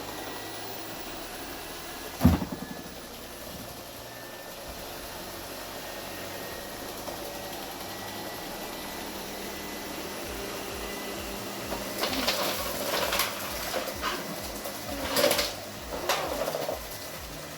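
ILIFE V55 Pro robot vacuum cleaner running with a steady whir. One sharp knock comes about two seconds in, and a run of clattering knocks and scrapes comes in the last few seconds.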